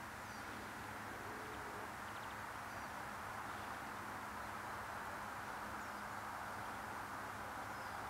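Faint, steady outdoor background noise with a low hum, and a few faint, high bird chirps.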